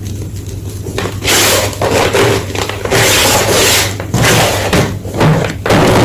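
Blocks of gym chalk being crushed: a few light crackles, then from about a second in, several long, dense crunching bursts as the chalk crumbles.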